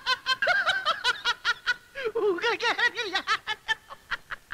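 A person laughing: a long run of rapid, high-pitched laughs, about six or seven a second, with a short pause about two seconds in.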